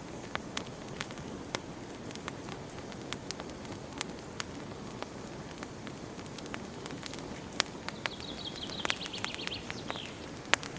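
Campfire burning, with a steady low rustle and irregular sharp crackles and pops. About eight seconds in, a high wavering whistle sounds for about two seconds, dropping in pitch as it ends.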